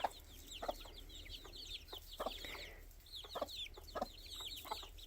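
Young chicks peeping continuously, many short high cheeps that slide down in pitch, overlapping one another, with brief low clucks from a mother hen scattered among them.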